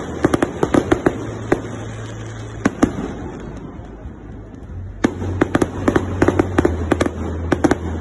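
Fireworks display: crackling shells bursting into rapid strings of sharp pops, dense in the first second and again from about five seconds in, with a lull between. A steady low hum runs underneath.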